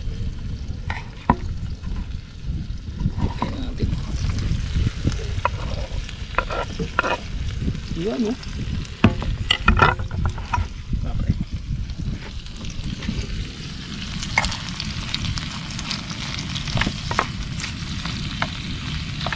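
Shrimp cooking down in a pan, sizzling as the liquid boils off, with a utensil scraping and clicking against the pan as it is stirred. The sizzling grows louder in the last few seconds as the pan starts to scorch.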